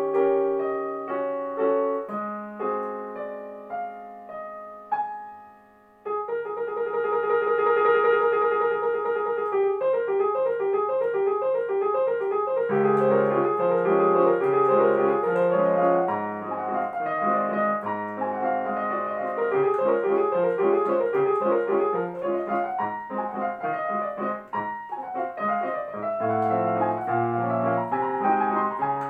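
Solo digital piano played by a child. A slower passage dies away to a brief pause about six seconds in. Then a fast running figure of rapid repeated notes begins, and low left-hand bass notes join a few seconds later.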